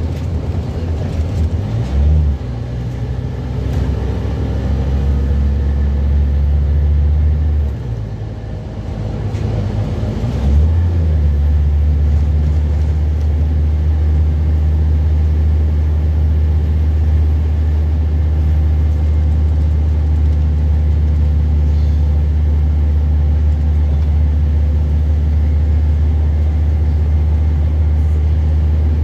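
Scania N230UB bus's five-cylinder diesel engine heard from inside the passenger saloon while driving. Its note shifts over the first few seconds, eases off around eight seconds in, then picks up again about ten seconds in and runs steadily.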